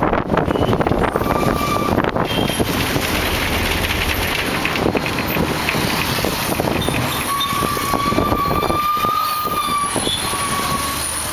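A moving road vehicle, heard from inside: a steady rumble of engine and tyre noise. A thin whistle-like tone comes in briefly about a second in, then again for about three seconds in the second half.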